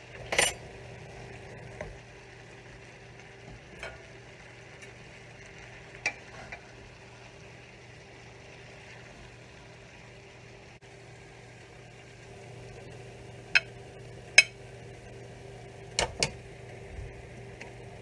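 Sharp clinks of a utensil against cookware while stir-fry is dished up, a few scattered and then two quick pairs near the end. Underneath is a steady low hum with a light hiss.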